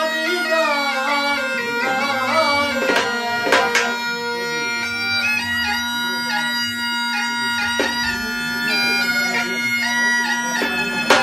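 Mashak, a South Asian folk bagpipe, playing a wavering melody over its steady drone, with a few dhol strokes, the loudest near the end.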